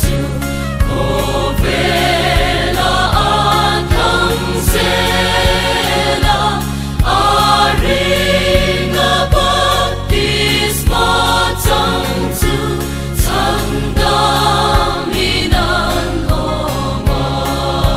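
Background music: a Christian song with singing voices over a steady bass and beat.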